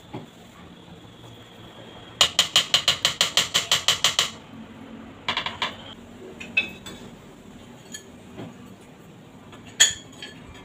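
A rapid, even run of sharp mechanical clicks, about seven a second for two seconds, then a shorter cluster of clicks a second later and one loud click near the end.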